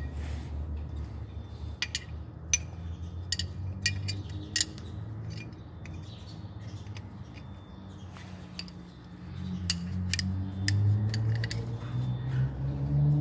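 Sharp metallic clicks and clinks of tools and brake parts being handled at a car's rear wheel hub, over a steady low engine hum that rises in pitch over the last few seconds.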